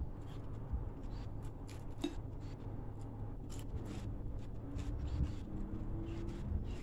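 Quiet eating sounds of a meal taken by hand: irregular soft clicks and smacks as fried mullet is torn apart with the fingers and eaten with rice, over a low steady rumble. A faint drone that slowly rises in pitch comes in about two-thirds of the way through.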